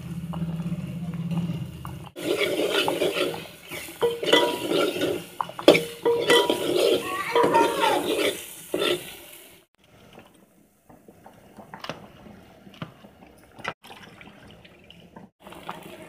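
A steel ladle stirs and scrapes a sizzling masala paste in an aluminium pot, with metallic scrapes and clinks. After about ten seconds it drops to quieter scattered clinks.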